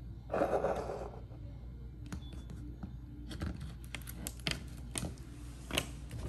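Plastic supplement bottles clicking and knocking against one another and the tabletop as they are picked up and set down, with a short rustle about half a second in and a quick run of light taps in the second half.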